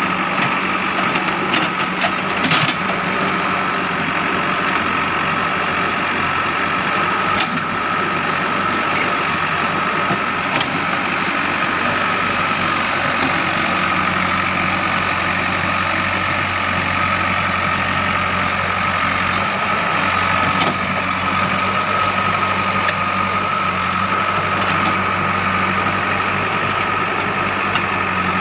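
JCB 3DX backhoe loader's diesel engine running steadily, with a constant high whine over the engine note and a few faint knocks.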